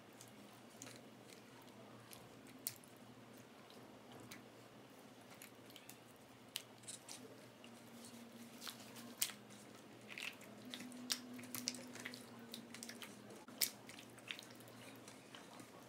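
Hand mixing chicken leg pieces in a thick yogurt marinade in a stainless-steel bowl: faint, scattered wet squelches and clicks, coming more often from about six seconds in.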